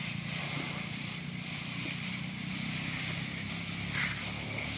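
A steady low drone like a distant engine runs under a high hiss. About four seconds in comes a short crackle as an Asian bull elephant tears and chews a trunkful of cut grass.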